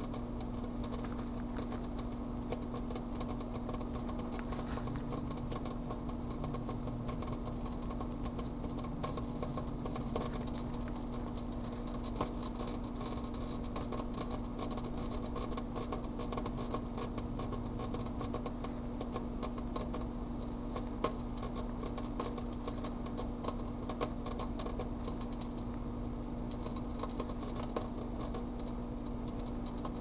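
Microwave oven running with a steady hum while tinfoil inside arcs, crackling continuously, with a few sharper louder snaps now and then.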